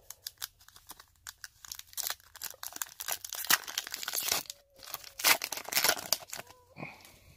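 Foil wrapper of an O-Pee-Chee Coast to Coast hockey card pack being torn open and crinkled by hand: a run of crackles and rips, sparse at first, busiest and loudest in the middle, thinning out near the end.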